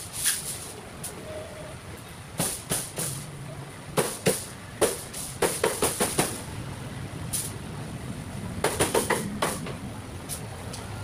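Cleaver chopping roast chicken on a chopping board: sharp knocks, a few single ones and then quick runs of chops around the middle and near the end.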